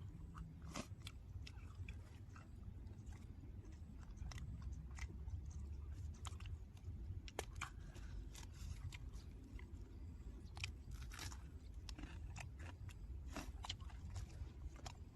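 A person chewing and biting into boiled chicken, with irregular short crunches and wet clicks throughout, over a steady low rumble.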